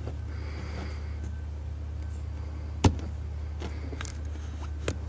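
A steady low hum with one sharp click just under three seconds in, followed by a few fainter ticks near the end.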